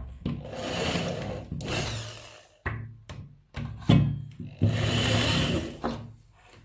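A small power tool runs twice, for about two seconds and then about a second and a half, with sharp knocks and clicks of handling between the runs.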